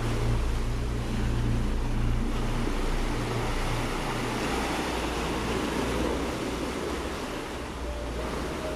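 Choppy sea washing and breaking against shore rocks, with wind: a steady rushing of surf.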